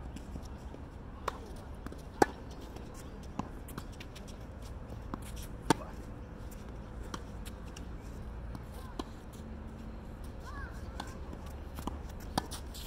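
A tennis rally: sharp single pops of a tennis ball struck by rackets and bouncing on the court, irregularly spaced a second or more apart, the three loudest about two seconds in, near six seconds and near the end.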